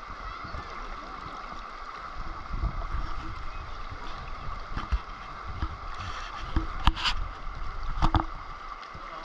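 River water rushing and lapping close to a camera held at the waterline. Low thumps from water slapping start a few seconds in, and a couple of sharp knocks near the end are the loudest sounds.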